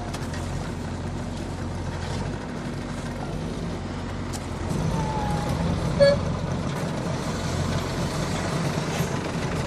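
Backhoe loader's diesel engine running steadily, working harder from about halfway through. A short, sharp ringing note cuts in once, about six seconds in.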